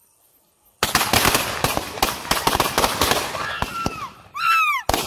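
Firecrackers going off in a fast, dense string of sharp bangs for about three seconds after a near-silent start. Near the end come two whistling tones that slide down in pitch.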